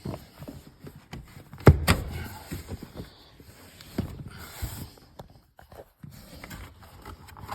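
Plastic interior trim piece being worked loose by hand: irregular clicks and knocks, the loudest two close together about two seconds in.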